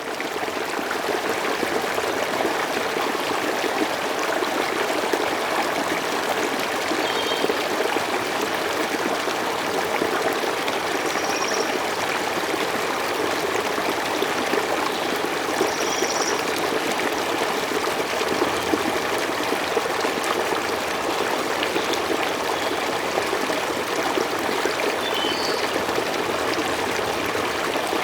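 River ambience played by the Opal relaxation sound generator: steady flowing stream water, with a few brief high chirps now and then.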